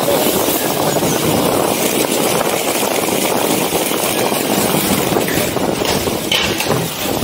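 Skate wheels rolling steadily over pavement, a continuous rushing noise, with wind blowing on the microphone.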